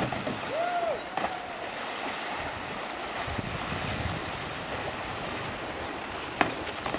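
Steady wind noise on the microphone over a wash of water as a wakeboarder is towed across a lake, with a brief rising-and-falling tone about half a second in and a couple of sharp clicks, the loudest near the end.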